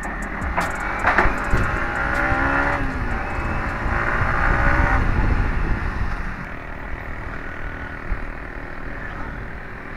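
Yamaha MT15's single-cylinder engine running under way with wind noise. The engine note shifts between about one and five seconds in, then the sound settles quieter.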